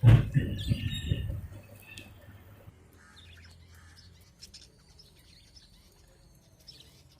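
Small caged pet birds chirping softly: a few short chirps in the first two seconds, then fainter scattered calls, with a few low knocks at the very start.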